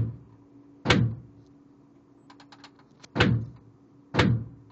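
Hand-cranked Gatling gun firing single shots at a slow, uneven pace: three sharp shots, each with a short decay, the last two about a second apart. Faint light clicks come between the first and second shots.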